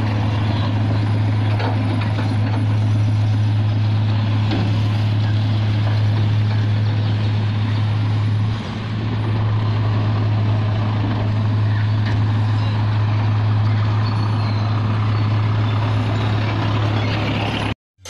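Isuzu Elf dump truck's diesel engine running steadily while its tipper bed is raised to dump soil, with a brief dip in level about eight seconds in. The sound cuts off abruptly just before the end.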